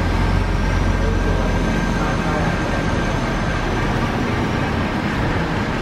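Large-format flex banner inkjet printer running as its print head carriage moves across the media: a steady machine noise with a faint high whine that rises and then falls once.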